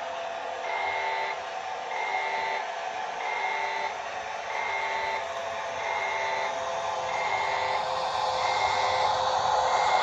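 ZIMO sound decoder in a TT-scale class 842 railcar model playing an electronic warning beep, repeating about every 1.3 s, roughly eight times, over a steady simulated diesel engine hum. The sound grows louder near the end.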